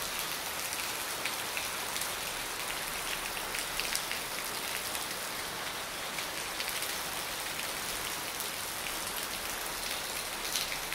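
Steady rain falling on wet stone paving, a continuous hiss with scattered sharp taps of individual drops.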